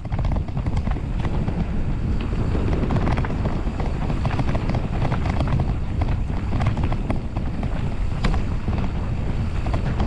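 Wind buffeting an action camera's microphone on a mountain bike going downhill fast, with frequent irregular clicks and knocks from the bike and tyres over rough trail.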